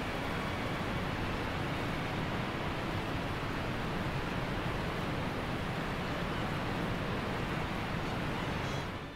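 Steady rushing noise of the flood-swollen River Swale flowing past the bridge, with wind buffeting the microphone underneath; it cuts off abruptly at the very end.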